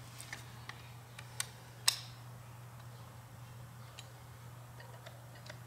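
Light, scattered metallic clicks and taps from a Carter BBD carburetor being turned over in the hands and its throttle linkage worked, with the sharpest tap about two seconds in. A steady low hum runs underneath.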